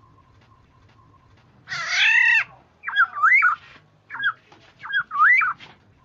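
Black-naped oriole calling: one harsh, nasal mewing call about two seconds in, followed by two fluty whistled phrases that swoop up and down, with a short whistled note between them. A faint, regular ticking sits beneath.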